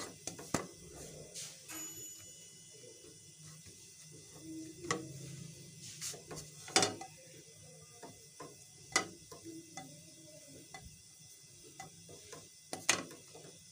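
Scattered light clicks and taps of a frozen pizza base being handled and turned in a nonstick frying pan, over a faint low hum. About half a dozen irregularly spaced clicks, the sharpest a little past the middle.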